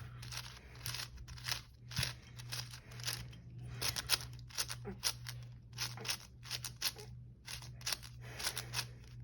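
A 7x7 puzzle cube being turned by hand: many quick plastic clicks and clacks as its layers turn, irregularly spaced.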